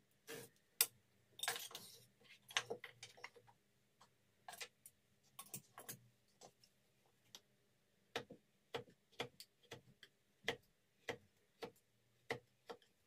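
Hand tools worked on a small wooden block: a series of sharp wooden clicks and taps, irregular at first, then coming about two a second in the second half.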